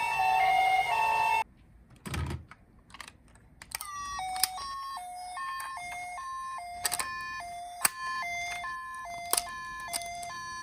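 A toy ambulance minicar's electronic siren sounding the two-tone hi-lo wail of a Japanese ambulance, steadily alternating between a higher and a lower tone, starting about four seconds in, with sharp plastic clicks from the toy throughout. Before it, a different stepped electronic tone sequence cuts off suddenly after about a second and a half, followed by a thump and a few clicks.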